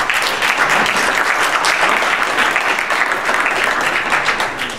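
Audience applauding, a dense mass of clapping that fades away near the end.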